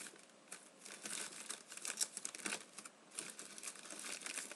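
Plastic packaging wrap crinkling and rustling in irregular crackles as it is handled and pulled open by hand.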